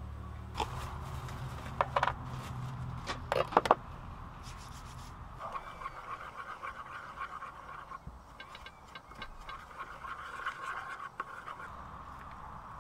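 Metal spoon stirring sauce in an enamel bowl, scraping and clinking against the bowl, from about five seconds in. Before that, a few sharp knocks and clicks on a wooden cutting board.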